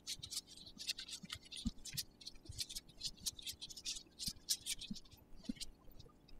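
Faint, irregular scraping and small clicks of a metal hand tool working against a hydraulic disc brake caliper as its piston block retainer is worked loose.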